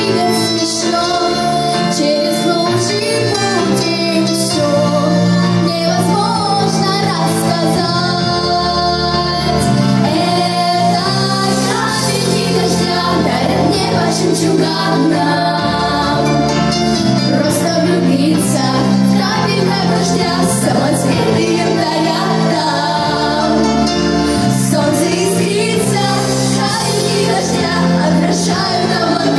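A girl singing a children's pop song into a microphone over a backing track with a stepping bass line.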